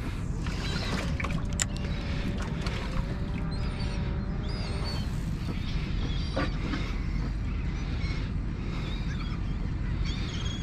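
Steady low rumble of a small fishing boat out on the water, with short high calls of seabirds now and then.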